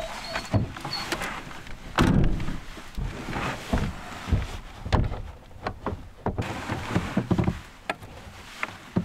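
Irregular knocks, thumps and rustling of a person moving about and handling gear in a truck bed under a canopy, with the heaviest thumps about two, five and six seconds in.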